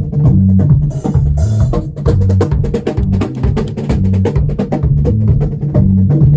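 Drum kit playing a busy groove with fast hits over a steady low bass line, with a cymbal crash about a second in.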